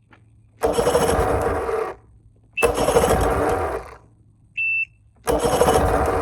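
Outboard motor with refitted carburetors being cranked in a start attempt: three bursts of about a second each with short pauses between, and a brief high beep in the second pause.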